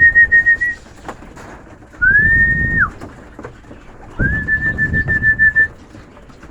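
Three high whistled notes at one steady pitch: a long fluttering one ending just after the start, a shorter smooth one about two seconds in that swoops up at the start and drops at the end, and another long fluttering one about four seconds in. It is a whistle used to call racing pigeons down off the loft and in through the trap.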